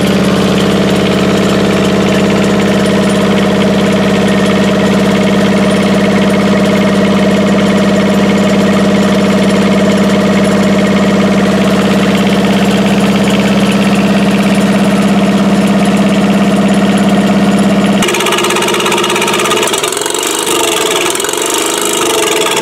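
Kubota Z482 two-cylinder diesel engine running steadily on its own after being restarted from storage. About eighteen seconds in the steady note breaks off abruptly and gives way to an uneven, wavering sound.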